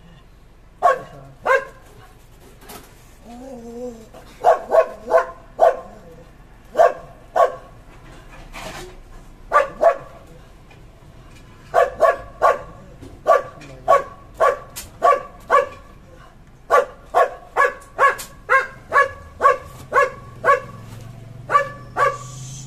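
A dog barking over and over: short, sharp barks in irregular runs, at times about two a second, with brief pauses between runs.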